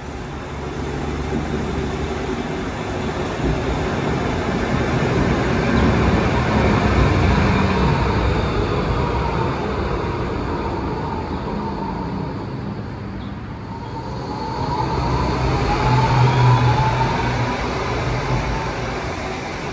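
Electric trams running through the stop: a steady hum of traction motors and wheels on rail that swells twice. In the second, louder swell the motors whine and rise in pitch.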